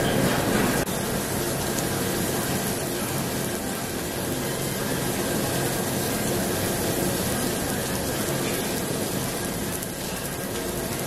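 Pork belly sizzling on a tabletop barbecue grill: a steady frying hiss, a little louder in the first second while the meat is turned.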